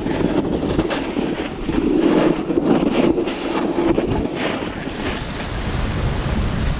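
Snowboard sliding and scraping over packed snow on a groomed run, with wind buffeting the microphone; the scraping swells about two seconds in.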